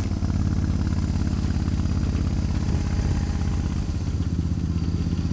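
2003 Suzuki Intruder 1400's V-twin engine running through Vance & Hines Classic II exhaust pipes while riding along at a steady pace, a continuous low, evenly pulsing exhaust note.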